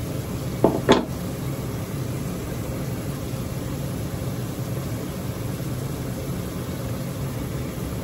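A steady low background hum, like a fan or air-conditioning unit, with two brief sharp sounds just under a second in.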